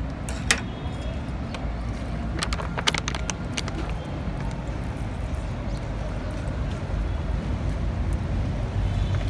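Steady low rumble of background traffic, with a sharp click about half a second in and a quick run of clicks and taps around three seconds in.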